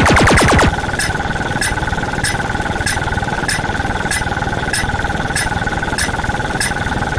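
Electronic sound effects: a steady two-note drone with sharp ticks about twice a second, opened by a short, louder burst of rapid falling sweeps.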